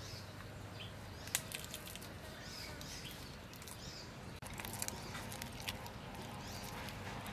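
Faint crackling and clicking of a boiled shrimp's shell being peeled by hand, with scattered small clicks.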